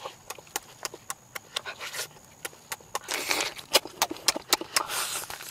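Close-up chewing and lip-smacking while eating roast chicken by hand: a run of sharp wet clicks, with a brief noisier stretch about three seconds in.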